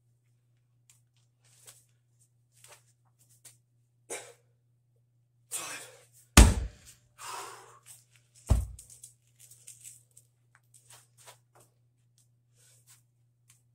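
A 145 lb concrete atlas stone, lifted to the shoulder and dropped to the floor, lands with a heavy thud about six and a half seconds in. A second, slightly lighter thud follows about two seconds later.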